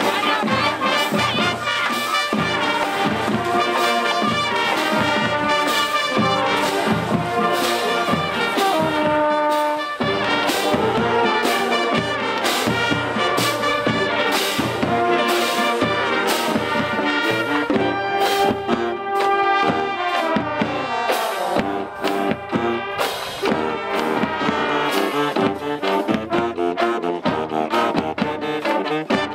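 High school marching band playing a brass-heavy tune in the stands, with saxophones, brass and drums keeping a steady beat. The tune breaks off abruptly and changes about ten seconds in.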